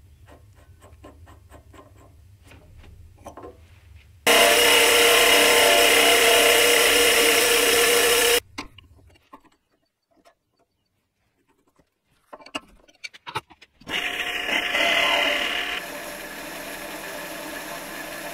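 Mini lathe turning metal with a carbide insert tool: a loud stretch of cutting noise that stops suddenly about halfway, a few light clicks of handling, then the cut resumes with a brief falling squeal before settling into a steady run.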